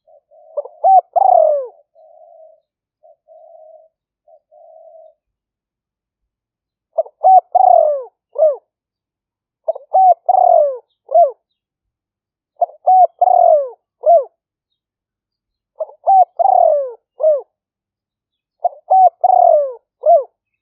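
Spotted dove (Thai nok khao yai) cooing: six phrases, each a few short coos followed by a longer falling croo and a short final note, repeated about every three seconds. Softer, quieter cooing runs between the first and second phrases.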